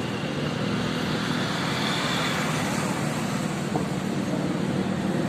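Diesel engine of an excavator at a construction site running steadily, a continuous even mechanical drone with no sharp changes.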